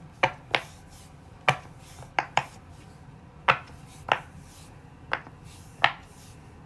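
Silicone Pop It fidget toy bubbles being pressed and popped one at a time. There are about nine sharp pops at uneven intervals, some in quick pairs.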